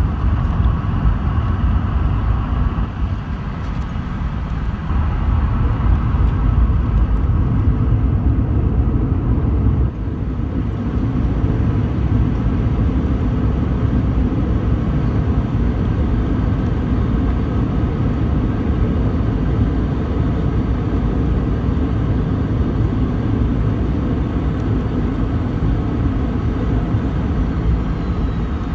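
Cabin noise of a Boeing 717-200 rolling out on the runway after landing: a steady low rumble of wheels, airflow and the rear-mounted engines. It grows louder for a few seconds about five seconds in, then settles into an even drone as the jet slows.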